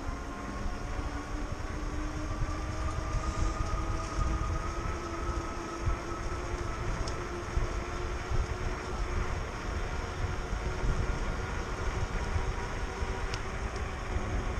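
Electric bike's hub motor whining steadily while riding, its pitch rising slowly as the bike speeds up, over wind buffeting the microphone.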